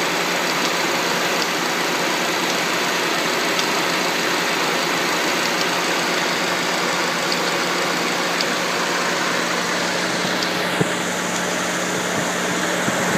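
Car engine idling steadily, with a steady hum and faint, irregular light ticks; the owner finds the noise suspicious.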